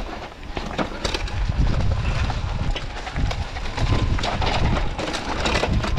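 Mountain bike riding over a rough dirt trail: wind rumbling on the microphone, with irregular clicks and knocks from the tyres and bike going over stones and bumps.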